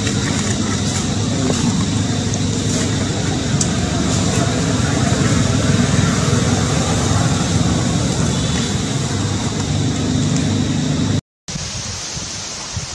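Steady outdoor background noise with a heavy low rumble. It drops out briefly about eleven seconds in and comes back quieter.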